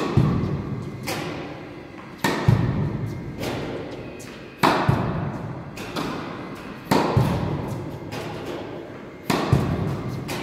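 Tennis balls being struck and bouncing in a large indoor tennis hall: sharp hits about every two seconds, several in quick pairs, each followed by a long echoing tail.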